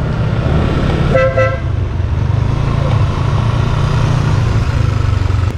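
Motorcycle engine running at low riding speed with a steady low rumble; about a second in, a horn gives one short toot.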